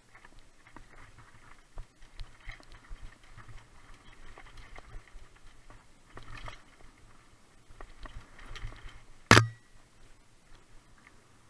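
Mountain bike rattling and clattering as it rolls fast over a rocky trail, with a steady run of small clicks and knocks from the tyres and frame. One much louder sharp knock, with a short ringing tail, comes about nine seconds in.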